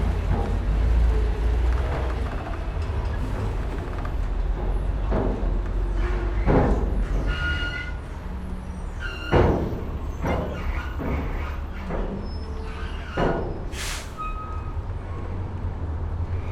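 A ferry coming into dock: a steady low engine rumble under scattered knocks and creaks. Brief squealing tones come about seven to eight seconds in, and a sharp thump, the loudest sound, about nine seconds in.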